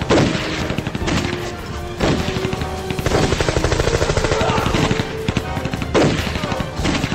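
Rapid, continuous automatic gunfire in a film battle scene, shots following one another too fast to count.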